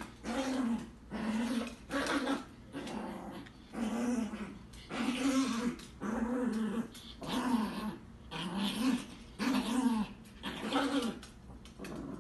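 Small dog growling at a plush monkey toy it is grabbing and tugging, in short rising-and-falling growls about once a second.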